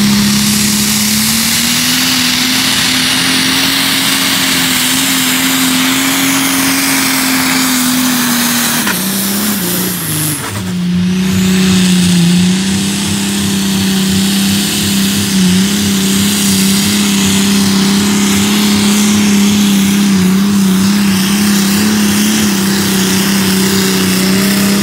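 A pulling tractor's engine running hard under load as it drags a weight-transfer sled. The engine note climbs slightly about two seconds in, sags briefly around the ten-second mark, then holds steady.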